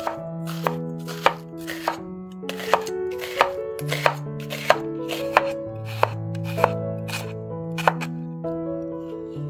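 Chef's knife slicing a red onion on a bamboo cutting board: sharp knocks of the blade on the board, somewhat under two a second, stopping shortly before the end. Background music plays throughout.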